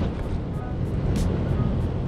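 Strong wind buffeting the microphone with a heavy low rumble, under background instrumental music.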